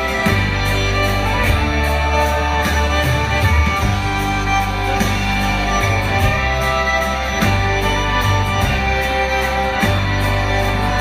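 Live country band playing, with fiddle to the fore over electric guitars, bass and drums at a steady beat.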